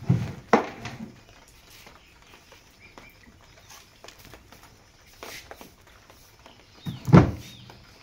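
Grass broom sweeping a concrete floor in short scratchy strokes. There are loud knocks near the start and again about seven seconds in.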